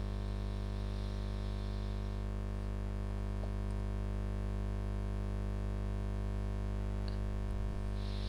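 Steady electrical mains hum: a low, unchanging buzz with many evenly spaced overtones.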